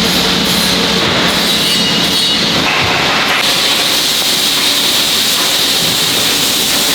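Steady, loud factory machinery noise with a hissing edge, changing abruptly about three and a half seconds in.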